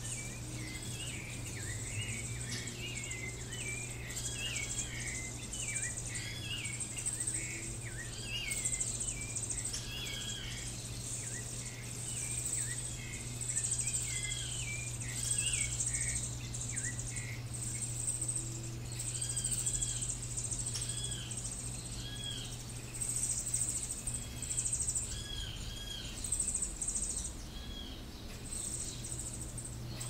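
Birds chirping in short, repeated arching notes, busiest in the first half, over a high, steady insect drone that swells and fades every few seconds, with a low steady hum beneath.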